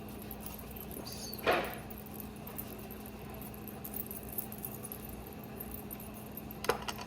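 Quiet kitchen handling sounds over a steady low hum: one brief rustle about a second and a half in, and a few light clicks near the end.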